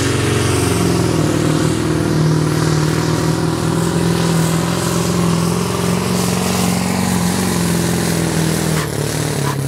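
Diesel engine of a Scania 142 bonneted pulling truck running flat out under heavy load as it drags a weight sled, a loud, steady low drone. It rises in pitch within the first second and falls near the end.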